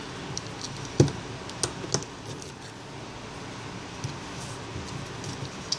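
Small clicks and taps of iPhone 4 parts being handled and pressed back into the phone's metal-and-glass housing during reassembly, the sharpest click about a second in, over a steady low hum.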